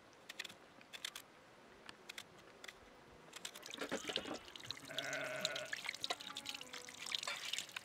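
A small knife cutting through an onion in a few crisp clicks, then water pouring from a tap and splashing as raw chicken is rinsed under it. A brief animal call sounds about five seconds in.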